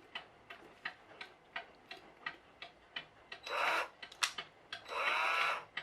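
Clock ticking steadily, about three ticks a second; the clock's mechanism has been partly rebuilt with 3D-printed parts. In the second half the ticks are overlaid by two bursts of rubbing noise from handling parts at the bench, one short and one about a second long, with a sharp click between them.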